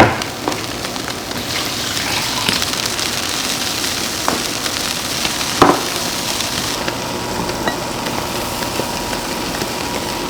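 Food sizzling in a hot pan, a steady hiss with a few sharp clicks, the loudest at the start and about five and a half seconds in.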